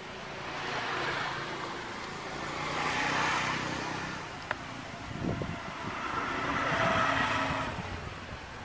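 Motor vehicles passing by: three swells of engine and tyre noise that rise and fade, with a low engine hum through the first half. A single sharp click about halfway through.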